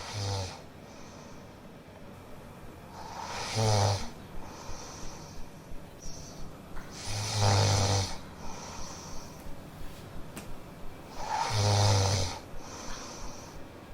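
A person snoring: three loud snores about four seconds apart, each with a deep buzz, and a faint quick fluttering between them.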